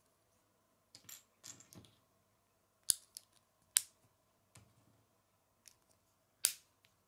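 Small plastic Lego bricks being pressed together by hand: soft rubbing and fiddling, then sharp snaps as the pieces click into place, the loudest three about three, four and six and a half seconds in.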